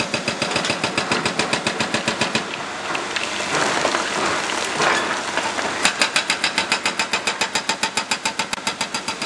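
Excavator-mounted hydraulic breaker hammering on the stone bridge deck in a fast, even run of blows, about nine a second. It stops for about three seconds in the middle, where a rougher, scraping noise is heard, then starts hammering again.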